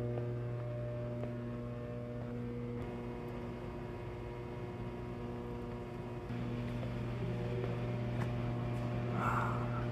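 Steady electrical mains hum with a stack of even overtones, stepping up slightly a little past halfway.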